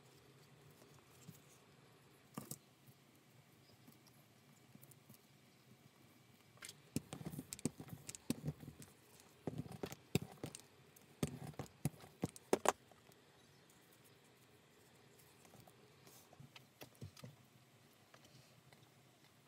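Irregular clicks, taps and short rubbing sounds of a small hand tool being worked over a leather strip on a cutting mat, busiest in the middle and sparse near the start and end.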